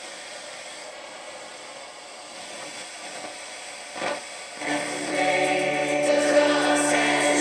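Sanyo M7750 boombox radio giving a steady hiss, then a knock about four seconds in, after which choral music from a radio station comes through loudly. The set is slow to come on, which the owner puts down to it not having been played in years.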